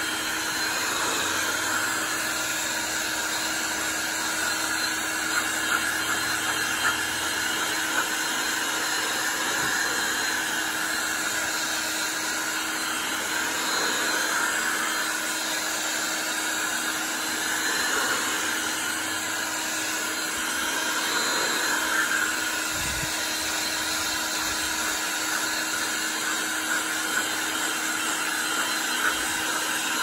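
Electric blower running steadily with a rush of air and a constant hum, used to blow or draw dust out of a tractor cab air filter element. A brief low thump comes about two-thirds of the way in.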